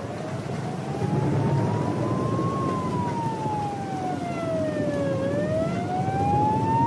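A siren wailing slowly, rising for a couple of seconds, falling, then rising again, over a steady rumbling background noise.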